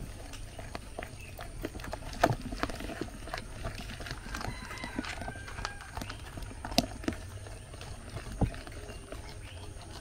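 Metal spoon stirring wet plantain batter in a glass mixing bowl, clinking and scraping against the glass in a run of irregular knocks, a few of them louder.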